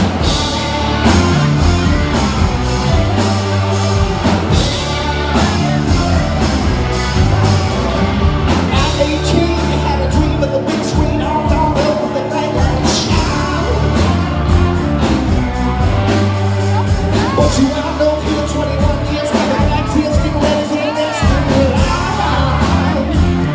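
Rock band playing loudly on a live stage, with a lead singer over a steady drum beat.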